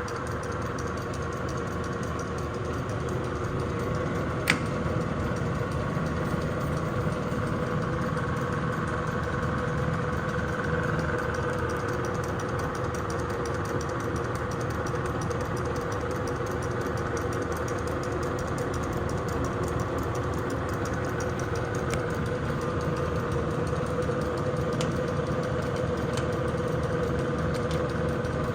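Harrison VS300 toolmaker's lathe running steadily, a constant machine hum with a steady tone, with a single sharp click about four seconds in.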